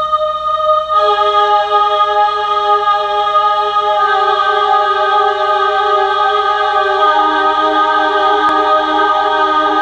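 Intro music: a sustained chord of held notes that builds as new notes join about a second in, again about four seconds in and again about seven seconds in.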